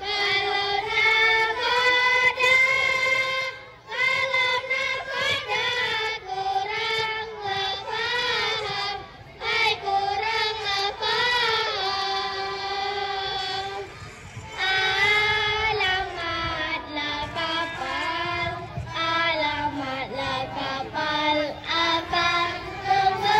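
A child singing a melody with long held notes, in phrases separated by brief pauses.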